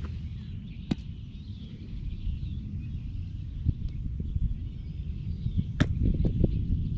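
Wind rumbling on the microphone with birds chirping. There are two sharp smacks, about a second in and near six seconds, the second followed by a few quicker knocks.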